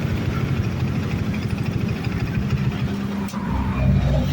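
Honda Supra X 125 FI motorcycle engine, modified with Daytona engine parts, idling unevenly. A click comes a little past three seconds in, and then the engine swells slightly louder, a light rev, for the last second.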